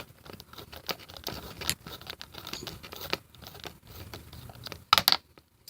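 Light scratching, clicking and rustling of hands working an old doorbell push-button and its wires loose, with a sharp, louder pair of knocks about five seconds in.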